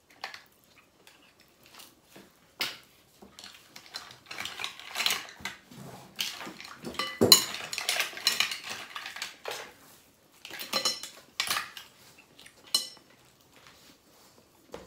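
Cutlery and mussel shells clinking and scraping against plates and bowls in irregular clicks, with the loudest clatter about halfway through.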